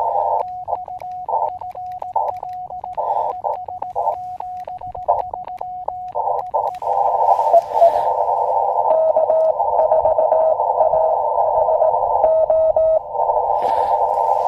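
Morse code from an Elecraft KX2 ham radio transceiver. For about the first seven seconds a steady tone near 700 Hz is keyed on and off in dots and dashes, with bursts of band hiss between. After that there is continuous receiver hiss through a narrow CW filter, and a second, fainter Morse signal at a slightly lower pitch comes in near the middle.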